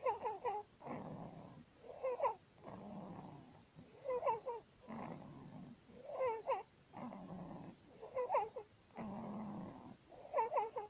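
A 19-day-old baby's noisy breathing with stridor, about one breath every two seconds. Each breath has a short squeaky, wavering pitched sound, followed by a longer rough, noisy phase. The stridor is the sign of laryngomalacia, a soft, floppy larynx that partly collapses as the baby breathes.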